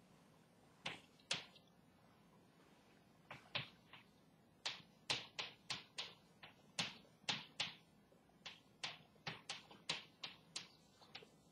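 Chalk writing on a blackboard: a quick, irregular run of short, sharp taps and clicks as the chalk strikes the board with each stroke. Two taps come about a second in, then after a short pause the taps run on steadily, roughly two a second.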